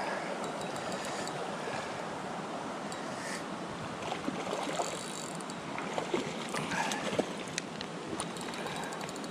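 Creek water rushing steadily, with a few short clicks scattered through it, more of them in the second half.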